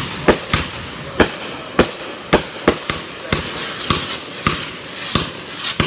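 A firework firing a rapid string of sharp shots, about two or three pops a second, over a steady hiss of burning.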